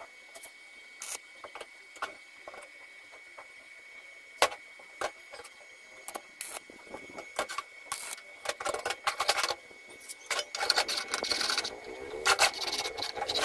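Steel parts being handled on a steel work table: scattered light clicks and knocks of metal pieces set against each other, growing into busier clatter and scraping in the second half. A faint steady high tone runs underneath.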